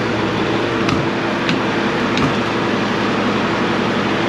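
Cummins L10 inline-six diesel idling steadily in neutral while it warms up, running on the fuel shutoff solenoid's manual override thumb screw, with a few light clicks over it.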